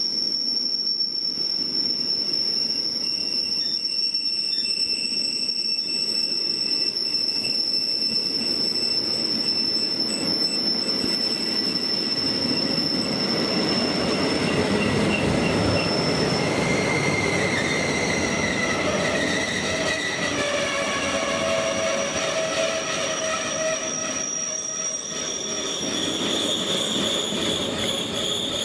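Container wagons of a long intermodal freight train rolling past on the rails, with a steady rumble of wheels and high-pitched wheel squeal. From about halfway several squealing tones at different pitches join in.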